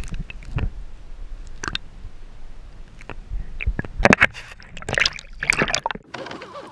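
Water sloshing and splashing around a GoPro action camera dipped underwater beside a kayak, with irregular splashes and knocks over a low rumble. The rumble stops about six seconds in as the camera comes back out of the water.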